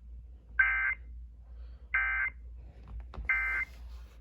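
Emergency Alert System end-of-message signal: three short bursts of buzzy digital data tone, about a second and a third apart, marking the end of the alert.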